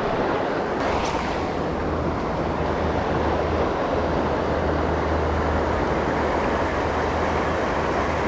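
Stream water rushing steadily, with a low rumble underneath.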